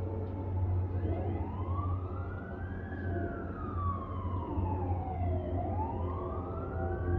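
Emergency vehicle siren in a slow wail: the pitch climbs from about a second in, falls away, then climbs again near the end. A steady low hum runs underneath.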